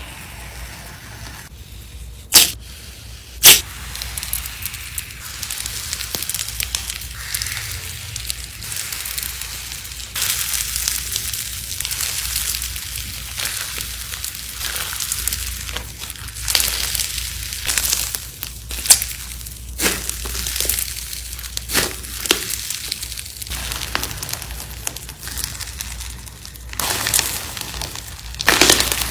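Hands squishing, stretching and kneading thick textured slime: a steady crackling, crinkly sound with scattered pops, two very sharp loud pops a few seconds in.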